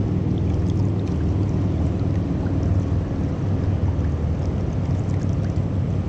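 Steady low rush of river current, with wind on the microphone.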